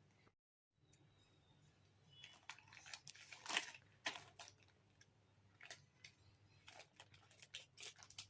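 Plastic packaging being handled and opened: scattered quiet crinkles, crackles and tearing, loudest about three and a half seconds in.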